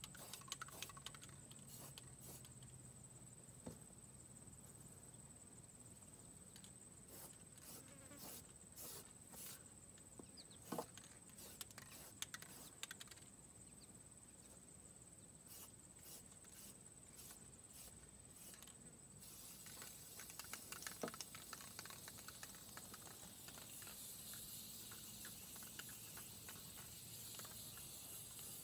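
Faint hiss of an aerosol spray-paint can spraying, starting about two-thirds of the way in and running on. Before it, scattered faint clicks over a steady high-pitched tone.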